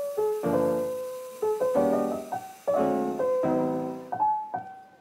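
Background piano music: chords struck about once a second, with single melody notes between them, each note dying away.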